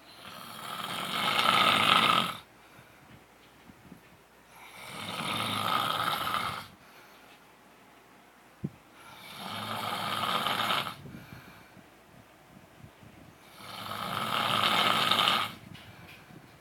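A man snoring in his sleep: four long snores about four seconds apart, each building up and then cutting off sharply, with quiet gaps between. A single short click about halfway through.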